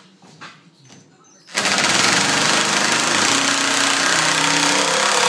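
A power screw driver running long and steady, driving a long screw into pallet wood. It starts suddenly about a second and a half in.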